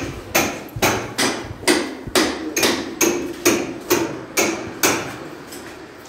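Hammer striking steadily, about eleven blows at a little over two a second, each with a short ring. The blows stop about five seconds in.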